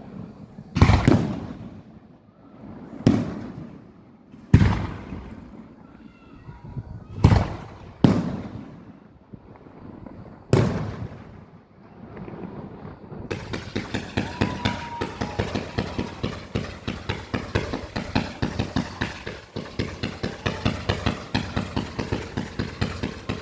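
Fireworks display: six loud aerial shell bursts, each a sharp bang with a rumbling echo, one to three seconds apart. About halfway through, a rapid run of smaller shots starts, about five a second, and keeps going.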